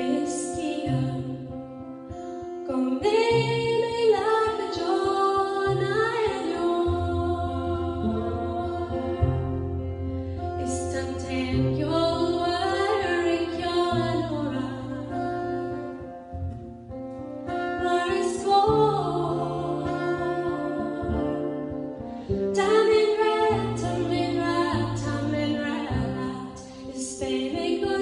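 Woman singing a slow ballad in Irish into a microphone, in phrases with short breaths between them, over an instrumental accompaniment of held chords and bass notes.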